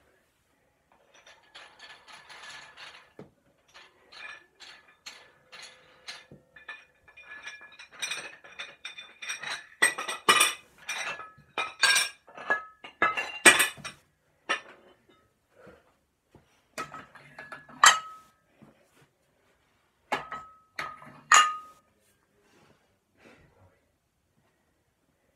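Hard metal or glassy objects clinking and clattering off to the side: a quick run of clicks that grows busier and louder, then a few separate sharper clinks that ring briefly.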